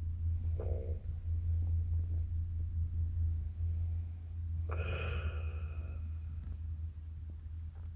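A person snoring: a continuous low rumble with a short, higher-pitched snort about five seconds in.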